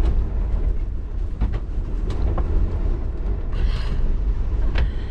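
Storm-force wind buffeting a parked van, heard from inside: a loud, steady low rumble with scattered knocks and rattles from the van body, and a short hiss about three and a half seconds in.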